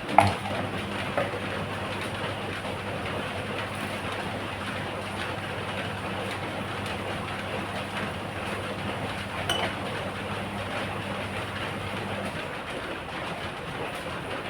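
Heavy rain pouring steadily, with a low steady hum under it that stops about twelve seconds in. A sharp clink right at the start and another about nine and a half seconds in.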